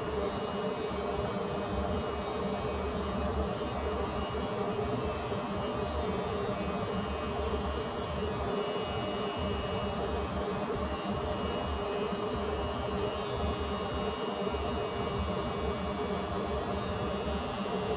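Electric hair clippers buzzing steadily.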